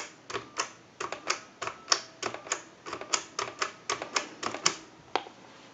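A quick, uneven series of sharp clicks from a telephone as a number is dialed out on a line, stopping shortly before the end with one last click.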